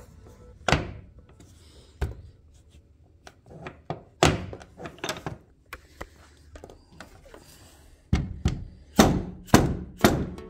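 Aftermarket hood hold-down latch on a Jeep Wrangler JK being worked by hand: a series of sharp clacks and thunks as the latch is flipped open and snapped shut, with the loudest four coming quickly one after another near the end.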